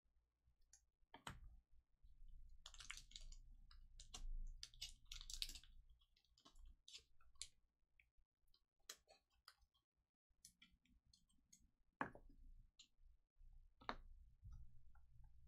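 Faint handling of trading cards and plastic card sleeves: soft rustling as cards are slid into sleeves, with scattered small clicks. Sharper clicks come about a second in and twice near the end.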